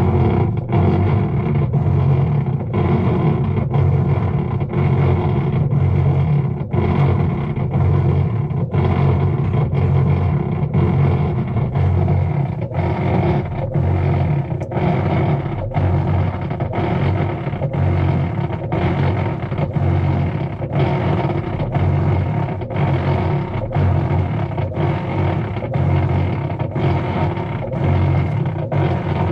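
Whirlpool top-load washing machine running with a loud, steady drone from its drive, pulsing a little over once a second, while the agitator fails to turn. This noise during agitation with a still agitator is the washer's fault.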